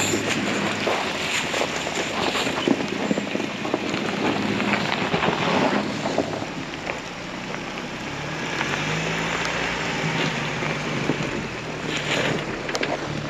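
Off-road 4x4 crawling over a rough, washed-out trail: constant crackling and small knocks of tyres over rocks and branches, with the engine's low hum coming up about eight seconds in.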